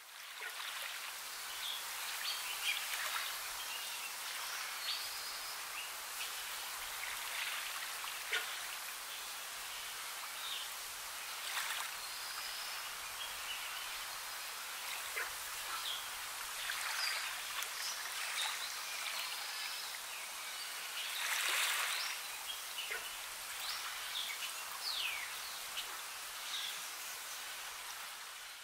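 Steady rush of water falling into a pond, with short bird chirps scattered through and a brief louder surge of splashing about three quarters of the way in.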